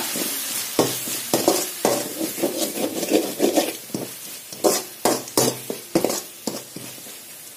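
Long perforated metal spatula scraping and knocking against a metal kadai as onion-tomato masala with chilli powder is stirred and sautéed, over a steady sizzle of frying. The strokes are irregular and ease off near the end.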